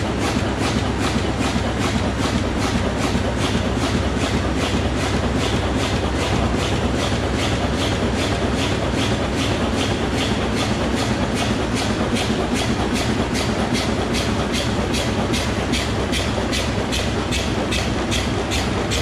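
Pacer-356SUP compact stand-up pouch making machine running in production, a steady mechanical noise with a regular clacking about two and a half times a second.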